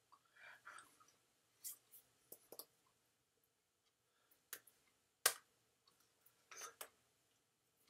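Faint, scattered clicks and light slaps of hands striking each other and the body during sign language, the sharpest a little past five seconds in.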